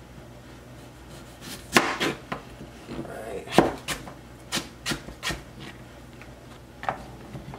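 Kitchen knife slicing a raw potato into thick fries on a cutting board: about ten sharp knocks of the blade going through the potato onto the board, unevenly spaced, most of them between about a second and a half and five seconds in, with one more near the end.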